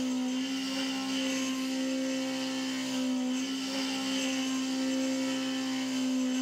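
CNC mill spindle driving a worn, chipped end mill through a row of steel gas blocks in a highly interrupted cut, under flood coolant. It gives a steady pitched whine over a constant hiss of cutting and coolant.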